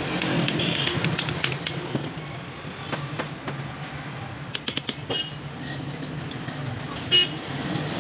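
Hand tools clicking and tapping on the metal gear housing of an angle grinder under repair, with a louder, sharper clink about seven seconds in. A low steady hum of traffic runs underneath.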